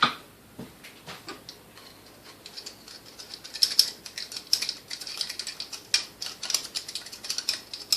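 Old coffee beans and grounds being scraped and knocked out of the inside of a KitchenAid A9 coffee mill: a run of quick dry clicks and scratches, sparse at first and getting busier about two and a half seconds in.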